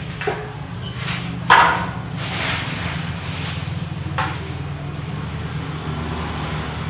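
A steady low hum with a few sharp knocks, the loudest about one and a half seconds in, and a hissing stretch after it.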